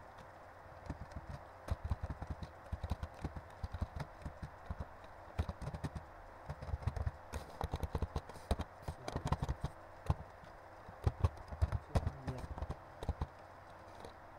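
Computer keyboard typing: irregular bursts of short key clicks over a faint steady hiss.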